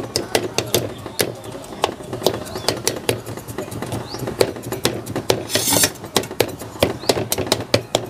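Knife tip repeatedly stabbing raw pork slices on a ceramic plate, an irregular run of sharp taps of the blade against the plate, about three or four a second. The pork is being pricked full of holes so the marinade soaks in.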